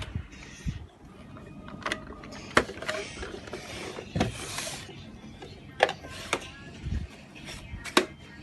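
Plastic toy kitchen pieces being handled, giving a scatter of sharp clicks and knocks, with a brief rustle about four seconds in.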